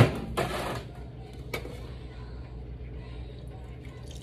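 Kitchen handling noise: a sharp knock as something is set down or struck against the pot, a brief scraping rustle just after, and a single click about a second and a half in, over a steady low hum.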